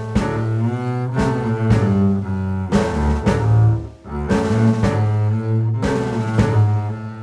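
Background music: held low string-like notes with a regular beat, briefly dropping out about four seconds in.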